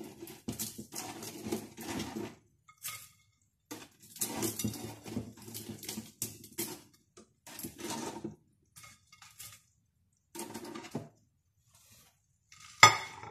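Metal wire racks and trays of an air fryer oven clattering and scraping in irregular bursts as cooked food is taken out, with one louder knock near the end.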